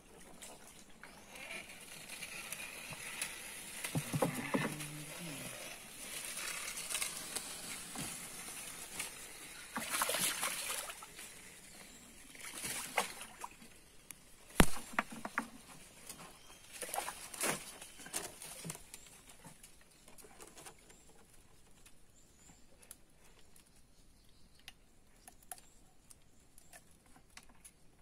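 Irregular splashing and rustling as a fish is hauled in on a hand line over the side of a wooden boat, with a single sharp knock about halfway through.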